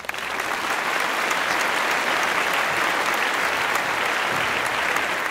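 Crowd applause, steady and full throughout.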